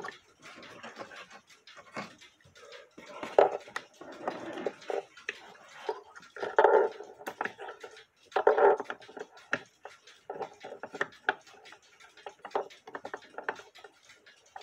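Handling noises from threading a clock cable over the roller inside a wooden clock case: irregular small clicks and rubs, broken by several brief, louder pitched sounds.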